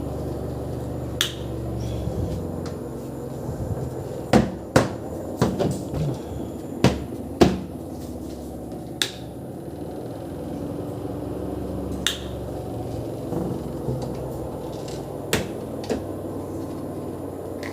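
Sharp knocks and clicks from a washing machine's plastic parts being handled during a repair: a quick cluster of about seven between four and eight seconds in, then single ones now and then. A low hum fades out in the first couple of seconds.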